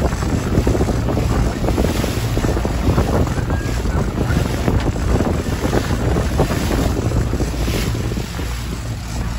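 Wind buffeting the microphone over the steady run of a Mercury outboard motor and the rush of the boat's wake.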